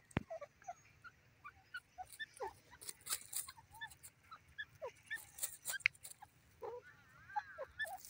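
Grey francolin's soft, short contact calls: faint scattered peeps and squeaks, several a second, with a few sharp clicks around the middle.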